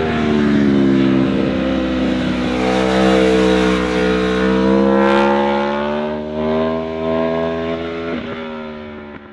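Sports naked motorcycle engine pulling hard through a bend at high revs, its pitch climbing and easing off, fading out near the end.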